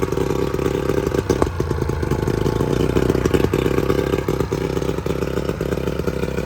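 Three-cylinder two-stroke outboard motor running out of the water on flushing muffs, a steady and really loud clattering run.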